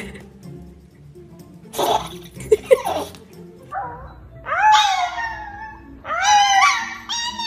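A girl and a small fluffy puppy howling together: three high howls in the second half, each rising and then sliding down in pitch. A short burst of rustling noise comes about two seconds in.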